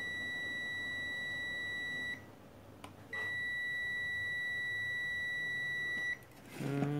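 Digital multimeter's continuity buzzer giving a steady high beep as the probes touch points on the amplifier board, twice: once until about 2 s in, then again from about 3 s to 6 s. The beep and the near-zero reading mean the meter sees almost no resistance between the probed points.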